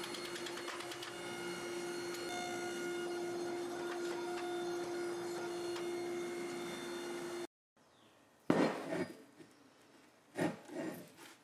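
Hydraulic forging press running with a steady hum while a hot steel billet is split in a splitting die; the hum cuts off suddenly about seven seconds in. Then the two split halves of the steel billet are handled on a workbench, knocking and rubbing together in two short, louder bursts.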